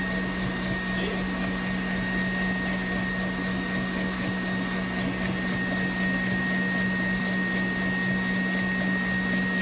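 Electric mixer running steadily at high speed, whipping cream into chantilly: an even motor hum with a thin high whine.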